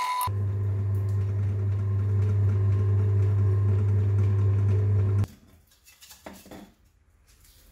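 Bench drill press's electric motor running without load, a steady low hum that stops abruptly about five seconds in; a few faint light knocks follow.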